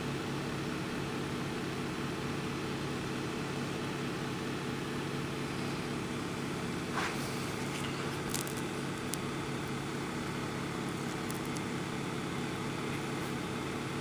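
A steady low machine hum that holds one pitch throughout, with a brief scrape about seven seconds in and a few faint clicks after it.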